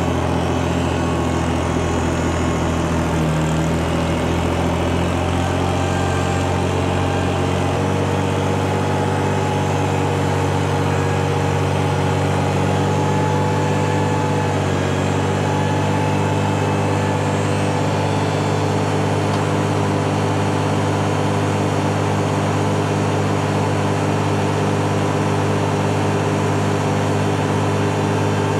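Farm tractor engine running steadily, its note changing about eight seconds in.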